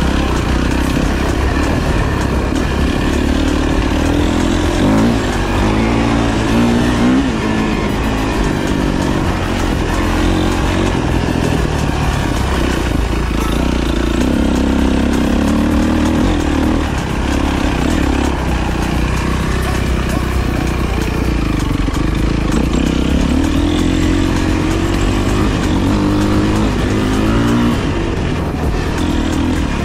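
Dirt bike engine running hard, its revs rising and falling again and again as the throttle is opened and closed.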